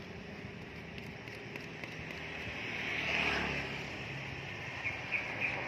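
Street traffic noise, with a vehicle passing close about three seconds in.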